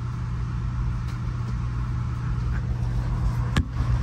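Steady low rumble and hum of a moving passenger rail car heard from inside the car, with one sharp click about three and a half seconds in.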